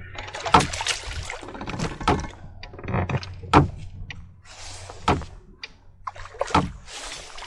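Water splashing and slapping against a fishing boat's hull, with scattered sharp knocks, over a low steady motor hum.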